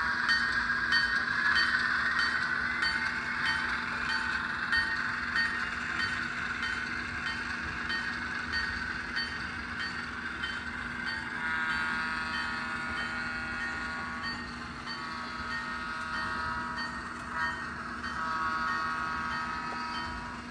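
Sound decoder of a Bachmann HO-scale ALCO S-4 model locomotive playing its diesel engine sound through the model's small speaker, then sounding the horn in long blasts from about 11 seconds in until the end. A regular high ding repeats throughout.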